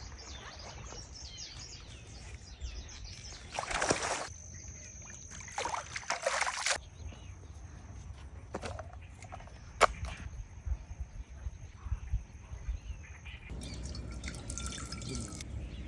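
Water sloshing and trickling in two short bursts, with a few sharp clicks later on.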